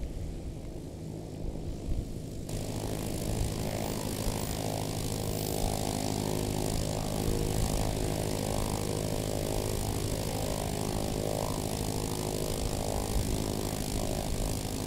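Single-engine bush plane's piston engine and propeller running steadily on the ground, close by. The sound changes abruptly about two seconds in, from a plane touching down to the parked plane's engine.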